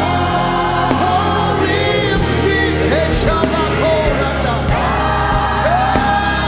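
Live gospel worship music: voices singing sliding, held notes over a band with sustained bass notes.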